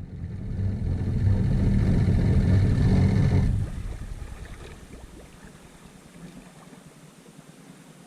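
Personal watercraft engine running hard: loud engine noise builds over the first second and holds, then drops sharply a little past three seconds and fades to a faint rumble.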